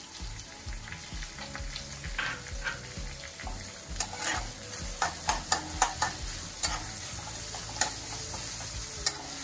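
Sliced onions sizzling as they sauté in hot oil in a metal kadhai, stirred with a metal spatula. The spatula scrapes and clicks sharply against the pan, mostly in the second half.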